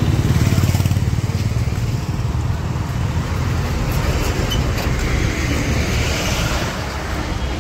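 Busy road traffic passing close by: the engines of motorcycles, taxis and a bus running, making a steady low rumble.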